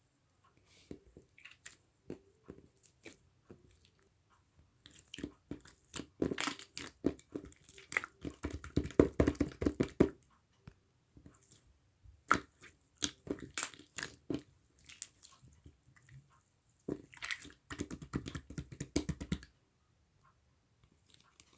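Slime being played with by hand: scattered small clicks and pops, with two long runs of dense, louder popping and crackling, one about six seconds in and another near the end.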